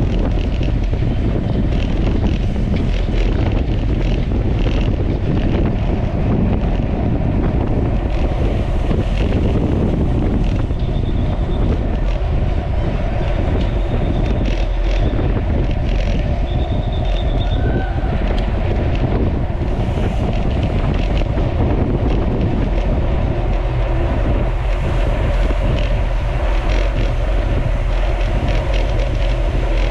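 Wind buffeting the microphone with a steady low rumble of rolling road noise, as from a camera moving at racing speed on a bicycle. A few brief high-pitched squeaks come through about midway.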